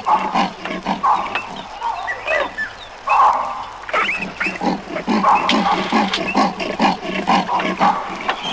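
A group of wild African animals calling together: a dense run of short, quick calls overlapping one another, with high squeaky calls rising and falling above them.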